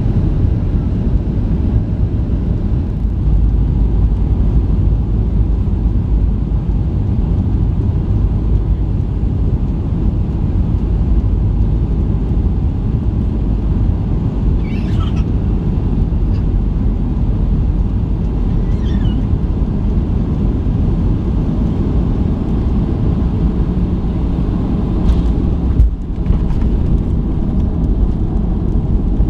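Inside the cabin of a Boeing 737-800 on final approach, the engines and airflow make a steady low rumble. Near the end comes a sudden thump as the main wheels touch down on the runway, and the rumble goes on into the landing roll.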